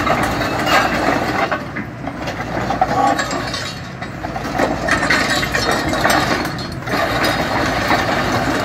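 Samsung SE130 LCM-2 excavator's steel tracks clanking and grinding on concrete as the machine turns, over the steady rumble of its running engine.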